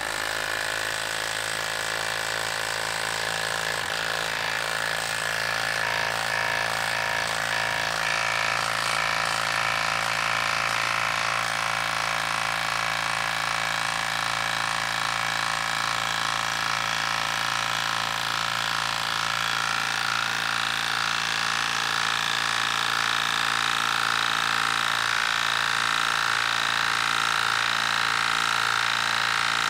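Milwaukee M18 Fuel half-inch compact impact wrench on speed three, hammering steadily as it drives a 10-inch by half-inch lag screw into wood. The tool is working hard under heavy load.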